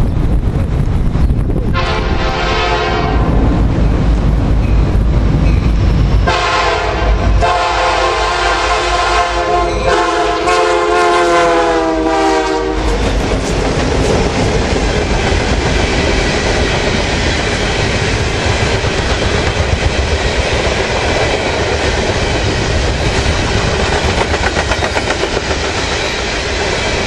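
Soo Line EMD SD60 diesel locomotives sounding their air horn in long blasts for about eleven seconds, with the diesel engines rumbling underneath. Then the train rolls past, wheels clicking over the rail joints.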